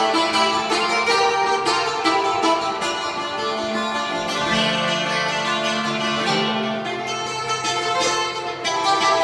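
Two Greek bouzoukis playing together live, a quick stream of picked notes in a traditional Greek melody.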